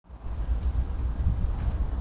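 Low rumble of a TE33A diesel locomotive, mixed with wind buffeting on the microphone.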